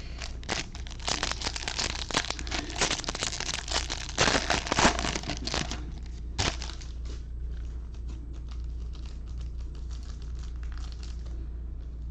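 Foil wrapper of a baseball card pack crinkling and tearing as it is ripped open, loudest in the first six seconds, then fainter crinkling that dies away near the end.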